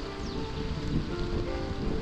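Background music of held notes changing in steps, over the steady hiss of rain.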